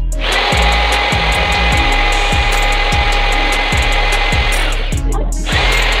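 Handheld corded electric drill running for about four seconds, stopping, then starting again near the end, over background music with a steady beat.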